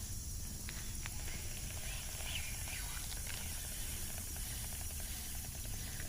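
Steady low outdoor background noise, with faint light ticking from a fishing reel being cranked as a lure is retrieved.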